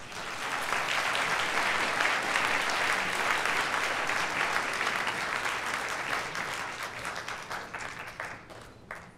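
Audience applauding: the clapping swells within the first second, holds steady, then thins out and dies away near the end.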